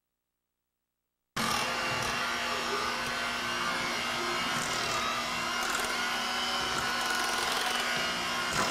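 Silence, then about a second and a half in an electric hand mixer starts running steadily, whipping mashed potatoes in a steel bowl.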